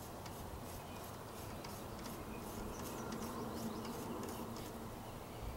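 Faint background noise with light, high ticks, and a faint low hum that swells briefly about halfway through.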